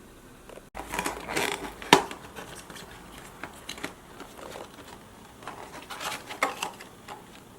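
Packaging and plastic parts being handled while unboxing: rustling and scattered clicks starting about a second in, with one sharp click about two seconds in.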